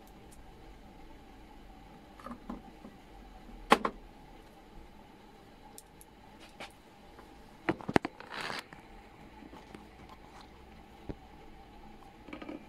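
Handling noise from working on an opened LED TV: a sharp click about four seconds in, then a quick cluster of clicks and a short scrape around eight seconds, with a few lighter ticks, over a faint steady hum.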